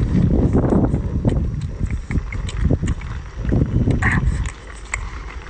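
Close-up eating sounds: a man chewing a mouthful of seafood and rice, with chopsticks clicking and scraping against a metal rice bowl as he shovels rice in.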